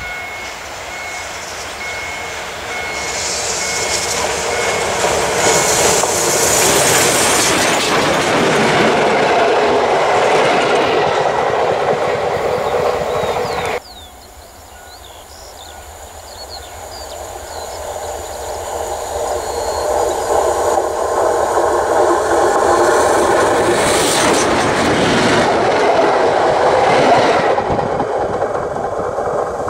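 Pt47 steam locomotive hauling a train, approaching and growing steadily louder. The sound drops suddenly about 14 seconds in, then builds again as the train comes closer once more.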